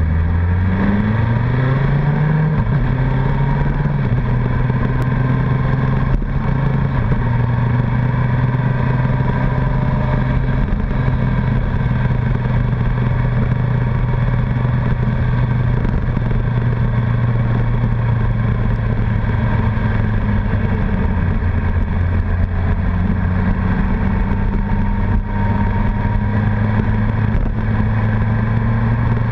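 Honda CBR1100XX Blackbird's inline-four engine on the move. Its pitch climbs and drops back twice through gear changes in the first few seconds, then it runs at a steady cruise under constant wind and road rush.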